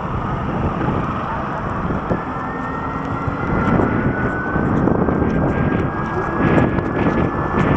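Wind rushing over the microphone and tyre noise on a wet road while riding a Revolt RV400 electric motorcycle at speed, with a faint whine rising slowly in pitch from about two seconds in.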